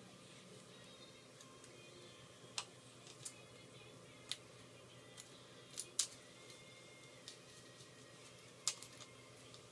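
Small sharp clicks and taps, about six of them at irregular intervals, from small metal tools and parts being handled during an iPhone 4 disassembly, over a faint steady hum.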